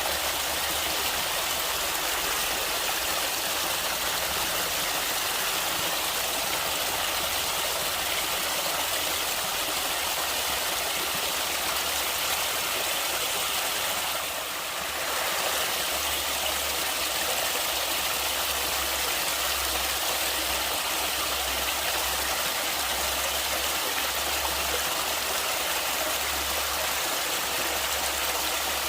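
Steady rushing of flowing stream water, with a low rumble underneath; the sound dips briefly about halfway through.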